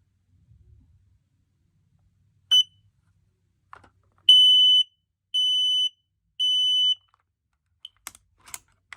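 Smoke alarm's piezo horn sounding on test: one short chirp, then three even half-second beeps at one high pitch in the temporal-three evacuation pattern. A few faint handling clicks near the end.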